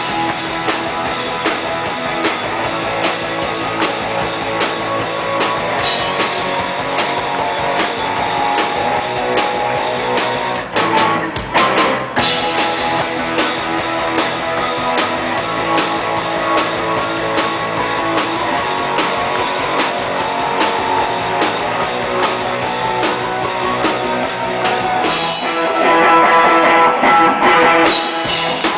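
Live rock band playing, with guitars and a drum kit keeping a steady beat; the band breaks off briefly about eleven seconds in, and it gets louder near the end.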